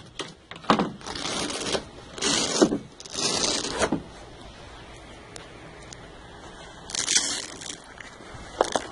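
TruXedo TruXport soft roll-up tonneau cover being unlatched and rolled up by hand: a few sharp clicks near the start, then several scraping, rustling bursts of about a second each.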